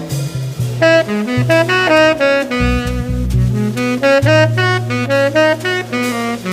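Instrumental music by a small group: a melody of quick runs of notes over long, low bass notes.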